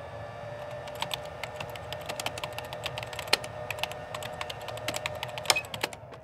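Rapid, irregular sharp clicks like typing on a keyboard, over a faint steady tone and low hum; it all fades out at the very end.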